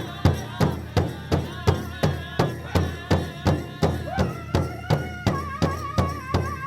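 African festival-style music: a steady drum beat of about three strokes a second, under a wavering melody line.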